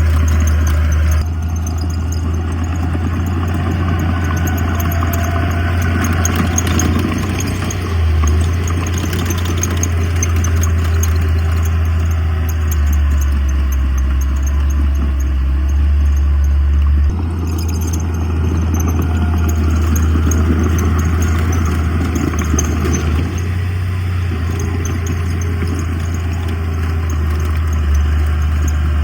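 Diesel engines of heavy earthmoving machines, a bulldozer and dump trucks, running with a steady low drone. The sound changes abruptly about a second in and again past the middle.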